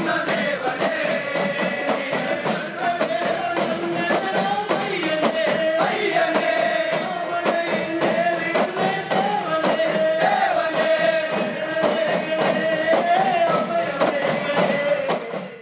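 A group of men singing a Malayalam Ayyappa devotional chinthu pattu together, with a steady fast rhythm beaten on udukku hand drums.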